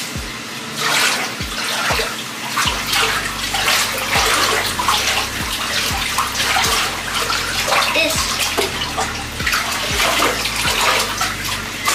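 Water running and splashing in an uneven rush, with a low soft thud repeating about every three quarters of a second underneath.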